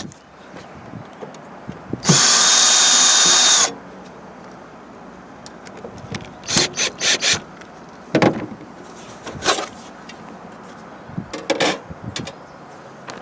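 Cordless drill-driver running once for about a second and a half as it backs a screw out of the air conditioner's cover, followed by scattered clicks and rattles of the loosened screws and cover being handled.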